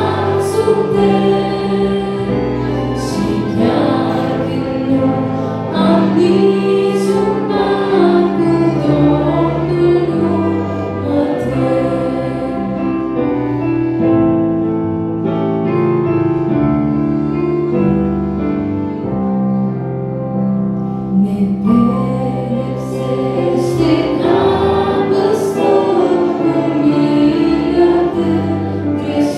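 A young woman singing an old Christian hymn in Romanian into a microphone over a sustained instrumental accompaniment, amplified through a PA.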